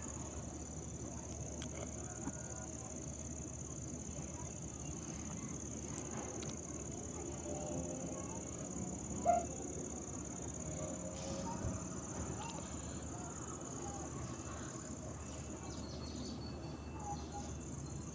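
A steady, high-pitched insect drone, like crickets at night, runs over low background noise. A brief knock sounds about nine seconds in.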